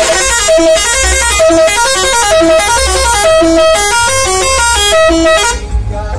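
Saztro Holiday bus's multi-tone telolet air horn playing a quick melody of short, stepped notes, cutting off about five and a half seconds in.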